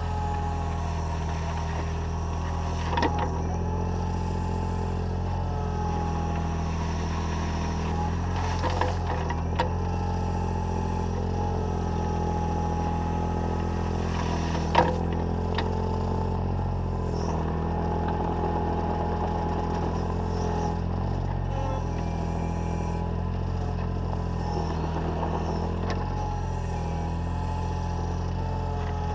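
Takeuchi TB014 mini excavator's diesel engine running steadily, close to the machine, while the bucket scrapes across gravel. A few sharp knocks of the bucket come through, the loudest about halfway.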